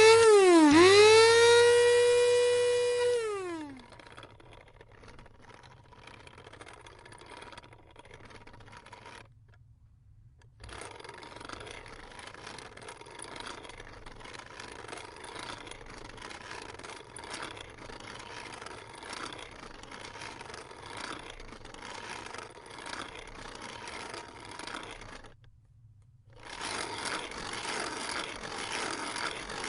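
Electric coffee grinder motor whining at a high pitch, dipping sharply twice as the beans load it, then switching off and winding down in falling pitch about three seconds in. Quieter, even grinding and rustling follows, cut off by two short silences, and grows louder near the end.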